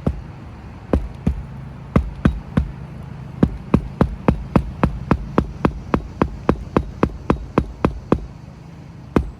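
Hammer driving roofing nails to fasten a shingle: a few scattered strikes, then a long even run of about three blows a second, stopping shortly before the end.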